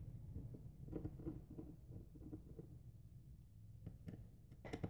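Faint small clicks and light scraping of a small screwdriver and the phone's metal frame being handled during disassembly, with a few sharper clicks near the end.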